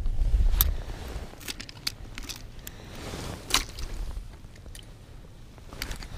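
Scattered sharp clicks and crunches of hands and metal fishing gear working in slushy ice at an ice-fishing hole, over a low rumble that is strongest in the first second.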